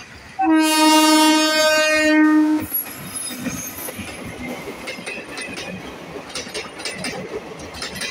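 WAP-4 electric locomotive's air horn sounds one long blast of about two seconds, then the express passenger coaches pass close by, their wheels clicking and rattling over the rail joints.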